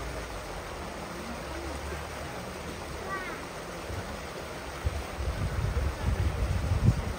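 Steady rush of water at a seal pool, with faint background voices and a few short high calls about three seconds in. Irregular low rumbles build up over the last two seconds.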